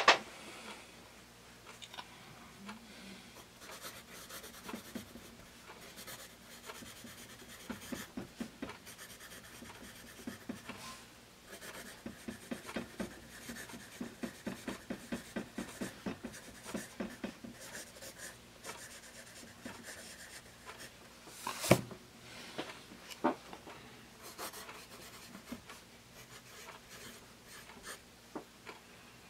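Bostitch #2/HB wood-cased graphite pencil scratching across paper in cursive handwriting, in many short strokes. A single sharp tap stands out about three-quarters of the way through.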